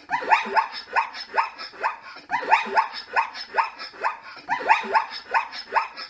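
Zebra calling: a run of high, barking yips repeated several times a second, in three bouts of about two seconds each, each yip sliding down in pitch.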